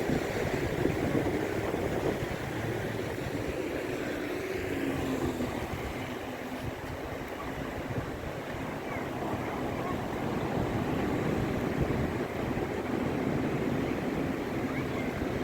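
Steady rush of surf and wind, an unbroken noisy wash with a low rumble that rises and falls slightly.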